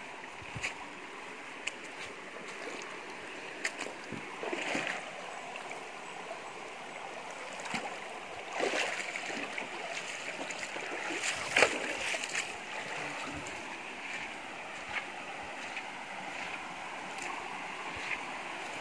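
Steady rush of a flowing river, with scattered short knocks and rustles on top, louder about 9 and 12 seconds in.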